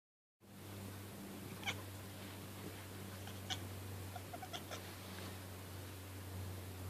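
Domestic cat chattering (cackling) at birds seen through a window: a few short, sharp chirps, one about a second and a half in, another about three and a half seconds in, and a quick run of several just after four seconds. A steady low hum runs underneath.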